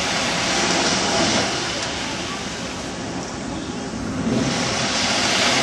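Rushing noise of wind and sea water, easing a little a couple of seconds in and swelling again near the end.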